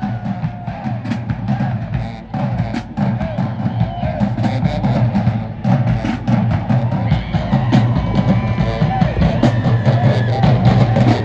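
A high school marching band playing in the stands, a drumline with heavy bass drum hits leading, with a few held horn notes partway through.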